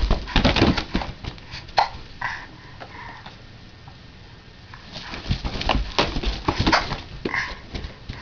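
Rubber balloons being squeezed, rubbed and bumped by a baby: a string of short squeaks, rubs and knocks. It is busy at the start, goes quieter in the middle, and gets busy again about five seconds in.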